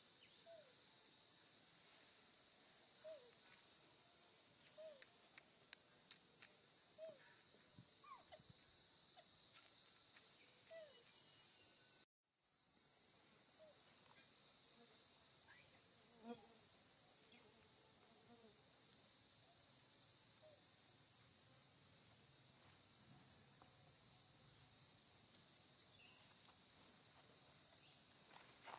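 Steady, high-pitched chorus of insects, with a few short falling chirps in the first half. The sound cuts out briefly about twelve seconds in.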